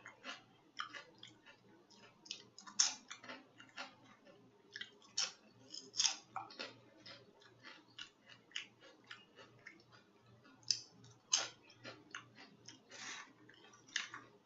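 Close-up mouth sounds of someone eating seafood boil: wet chewing and lip smacking in an irregular stream of sharp smacks, with a few louder ones now and then.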